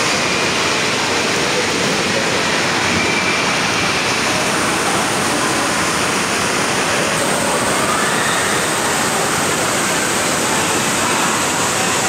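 Loud, steady rushing and splashing of water in an indoor water park, with no break or change.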